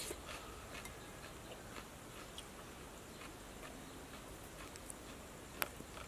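Quiet eating sounds: a metal spoon scraping and tapping in a ceramic bowl, with faint scattered clicks of chewing. One sharp clink of spoon on bowl comes near the end.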